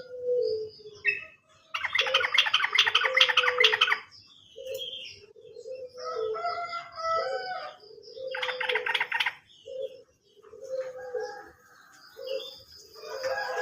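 Yellow-vented bulbul (trucukan) song used as a lure: loud bursts of rapid rattling trills, one about two seconds in and another near nine seconds, with chattering phrases between them, over short low notes that repeat throughout.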